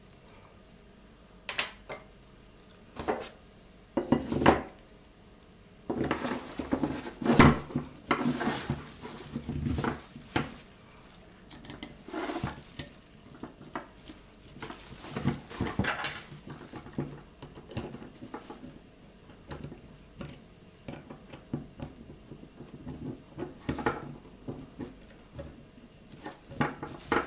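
Metal slingshot frame and its bolt being handled and fitted back together: irregular clinks, taps and knocks of metal parts, with handling noise between them, as a superglued bolt is put back in place.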